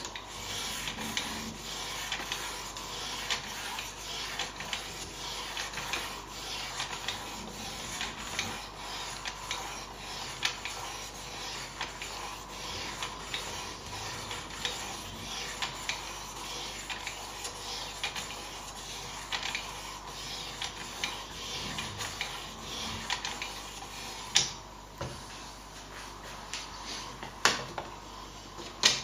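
Sharpening stone of a Ruixin Pro II guided knife sharpener drawn again and again across a folding knife's blade edge, a steady run of scraping strokes. A few sharp clicks come near the end.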